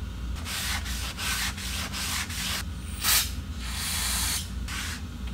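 Paper shop towel rubbing and wiping a metal clutch part clean, in quick, uneven scrubbing strokes about three a second, one louder stroke about three seconds in.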